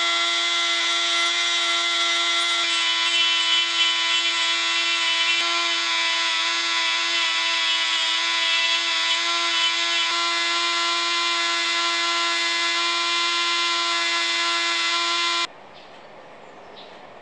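Flexible-shaft rotary tool running at constant speed with a carving burr grinding into skateboard maple laminate: a steady high-pitched whine over a grinding hiss. It cuts off abruptly near the end.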